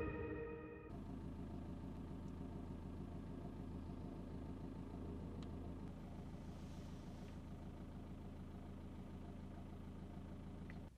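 The tail of an electronic intro jingle fades out in the first second. A steady low engine hum follows.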